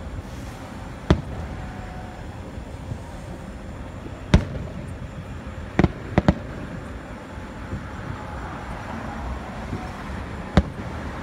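Aerial firework shells bursting in the sky: about six sharp booms spread out with pauses between them, three in quick succession near the middle.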